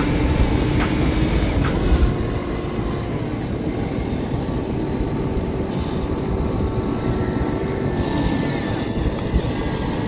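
Small electric motors of a remote-control toy excavator whining steadily as its arm swings and lowers. The whine stops about eight seconds in and starts again near the end, over a steady low rumble.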